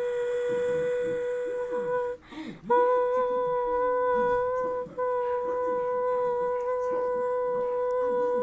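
A steady, unwavering pitched tone held for several seconds. It breaks off briefly about two seconds in, and for a moment a little before the five-second mark. Fainter wavering, gliding voice-like sounds run beneath it.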